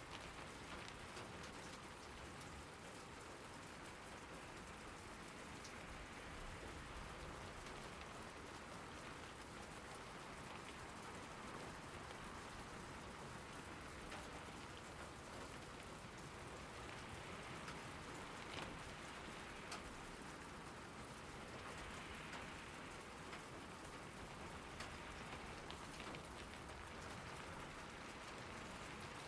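Steady rain falling and pattering on surfaces, with a dense scatter of individual drop ticks.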